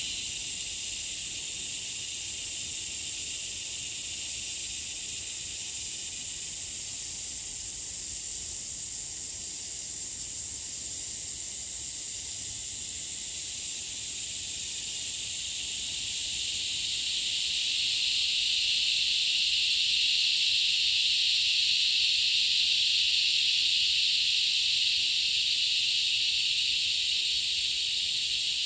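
Chorus of insects droning steadily at a high pitch, with a quick, even pulsing over it. The chorus swells louder a little past halfway and eases slightly near the end.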